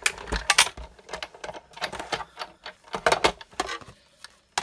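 Big Shot die-cutting machine being hand-cranked, the stacked cutting plates and die squeezing through the rollers with a run of irregular clicks and crackles that thin out near the end.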